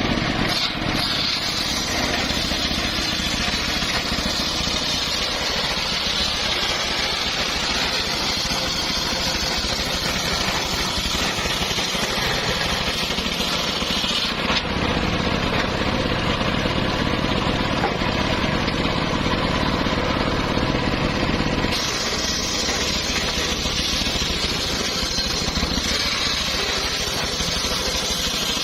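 Engine-driven traveling circular saw running steadily, a continuous loud mechanical din; its sound changes abruptly about halfway through and again about three quarters of the way through.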